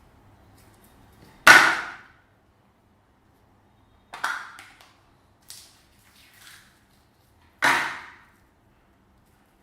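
Slime being squished and pressed while it is mixed, making short squelching pops that each die away within half a second. There are three loud ones, the first the loudest, and two fainter ones between the second and third.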